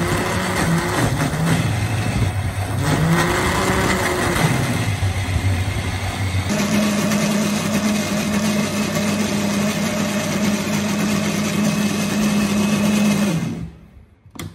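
Electric blender motor driving a small grinder jar, grinding roasted peanuts into peanut butter. The pitch rises and falls repeatedly in the first half, holds steady from about halfway, and the motor cuts off near the end.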